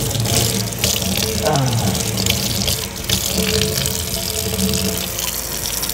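Kitchen tap running steadily into a stainless steel sink, the stream splashing off a face and hands into the basin during a rinse, with light background music underneath.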